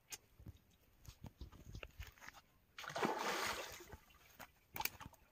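A big hooked fish thrashing at the water's surface, one loud splash lasting about a second around the middle. A few sharp clicks come before and after the splash.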